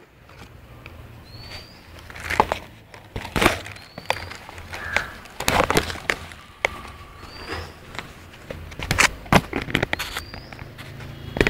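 Plastic bags and a plastic food container rustling and crackling as they are handled close to the microphone, in irregular bursts. A bird gives a short, high, rising chirp every two to three seconds.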